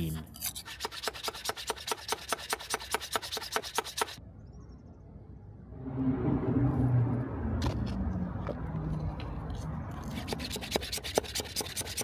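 Damp silicon carbide grit being spooned into a crucible mould and pressed down. It starts with a fast run of sharp gritty scraping clicks, stops briefly about four seconds in, then turns to a denser crunching grind as the grit is compacted. Near the end the fast clicking returns.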